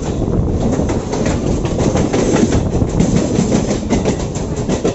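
Mumbai suburban EMU local trains running close alongside each other: steel wheels clattering over rail joints over a steady rumble, heard through an open coach doorway as a Central Railway local passes on the next track.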